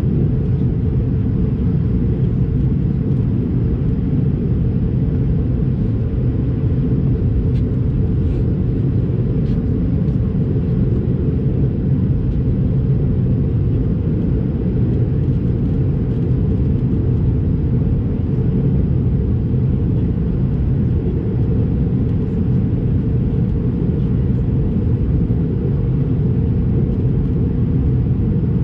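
Steady cabin rumble of an Airbus A220-300 in flight: the drone of its Pratt & Whitney PW1500G geared turbofans and the airflow over the fuselage, heard from a rear window seat. Low and unchanging, with a few faint ticks about eight to ten seconds in.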